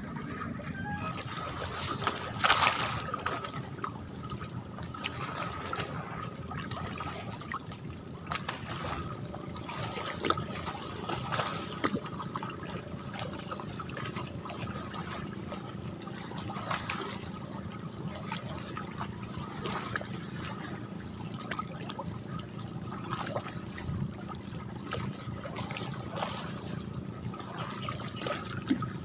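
Shallow lake water trickling, dripping and sloshing as a wet cast net is handled at the surface, with scattered small splashes and ticks.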